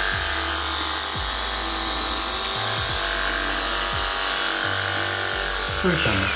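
Electric horse clippers running with a steady buzz while clipping a horse's coat.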